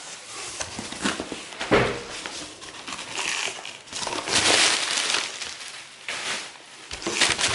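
Cardboard box flaps being pulled open and plastic air-pillow packing rustling and crinkling in irregular bursts, with a sharp knock about two seconds in and the loudest crinkling about halfway through.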